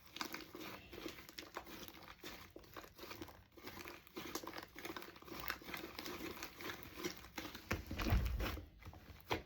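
Sticky glue-and-shaving-cream slime being kneaded and mixed by hand. It gives a stream of quick, irregular wet clicks and pops, with a louder low thump about eight seconds in.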